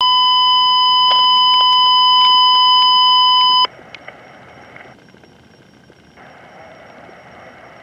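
Fire dispatch alert tone: one steady pitch held for almost four seconds, then cut off sharply, leaving a low radio hiss before the dispatch message.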